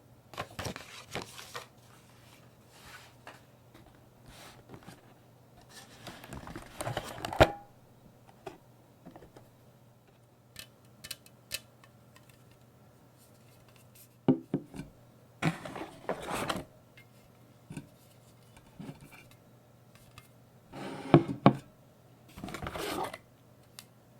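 Packaging being handled and opened by hand: short bursts of rustling and scraping, several times, with small clicks and knocks between and a sharp click about seven seconds in.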